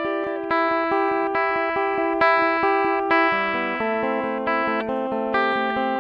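Solo guitar background music: a flowing run of plucked notes, moving to a lower chord about three seconds in.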